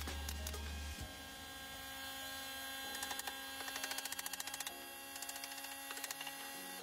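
Background music: sustained tones that shift pitch every second or so, with a quick ticking beat in the second half.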